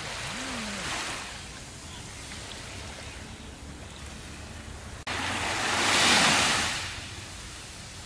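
Small ocean waves washing onto a sandy beach. There is a gentle swell about a second in, then a louder wave sets in suddenly just after five seconds, rushes up the sand and fades away by about seven seconds.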